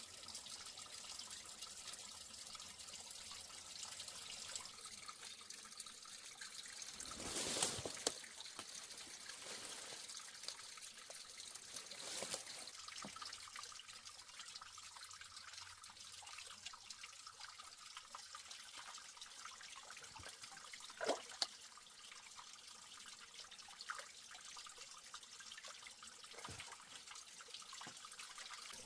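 Water trickling and running steadily, with a louder splash about seven seconds in and a few sharp clinks or knocks later on.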